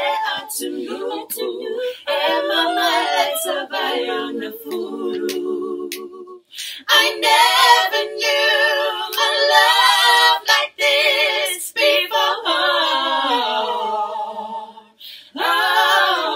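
Women's vocal group singing a cappella in harmony, several voices together with vibrato, pausing briefly about six seconds in and again near the end.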